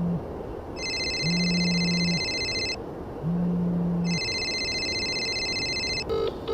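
Phone ringing: an electronic ringtone in two long spells over a low buzz that pulses about once every two seconds, then a short run of beeps near the end as the call connects.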